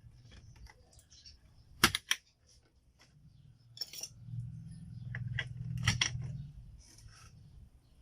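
Sharp plastic clicks as a RAM module is handled and pushed into a motherboard memory slot, the loudest a close pair about two seconds in, with more clicks later and a low hum in the middle.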